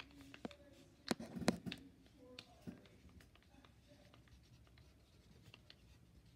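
Handwriting on paper: a writing tip scratching and tapping in short strokes, faint, with a louder flurry of strokes about a second in.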